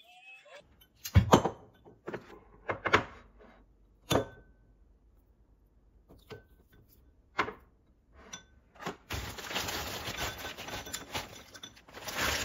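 A spoon knocking and clinking against a glass bowl and container while scooping a thick spread: a handful of sharp knocks, the loudest about a second in. Near the end comes about three seconds of steady rustling as frozen berries go into the bowl.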